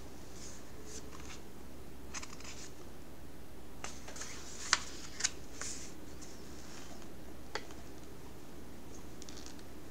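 Steady low room noise with scattered soft rustles and a few sharp clicks, the loudest a little under halfway through.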